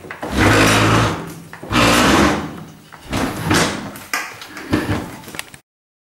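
A built-in Zanussi ZDT41 dishwasher being pulled out from under the worktop, scraping and rumbling as it slides, in four drawn-out pulls of about a second each. The sound cuts off suddenly near the end.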